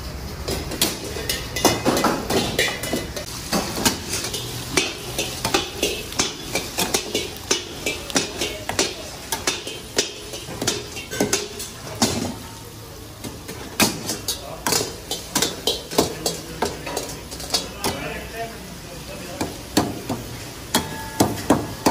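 Metal tongs and ladle clanking and scraping against steel karahi woks as mutton karahi is stirred and tossed over gas burners, with the meat sizzling. Sharp clanks come a few times a second, easing off briefly about halfway through.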